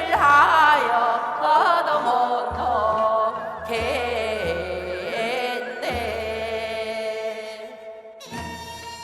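Korean folk song (minyo) being sung: a sustained, wavering vocal line with sliding ornaments over instrumental accompaniment. The voice drops away about eight seconds in, leaving the accompaniment alone.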